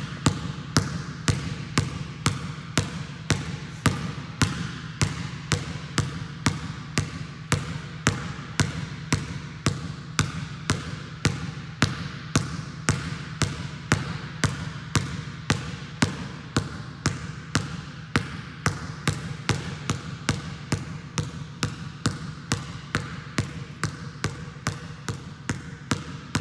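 A basketball pound-dribbled hard against a gym floor with the left hand, a steady run of bounces at about two per second.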